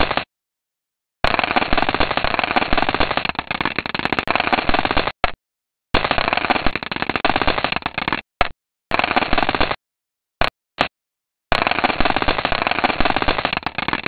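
Stardust spacecraft's recording of ice and dust particles in a comet's tail striking the probe: a dense, rapid crackle like hail falling at high speed. It comes in bursts of one to four seconds broken by short silences, with a few brief spurts between them.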